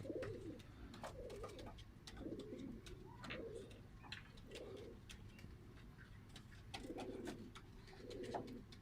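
Domestic pigeons cooing faintly, with a low coo every second or so, over scattered light clicks and taps.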